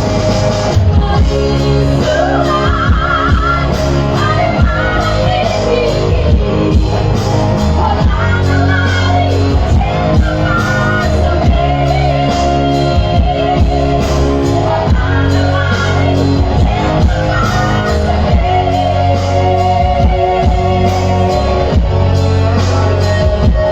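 A woman singing a Batak song with a wavering, ornamented voice over loud, steady band accompaniment.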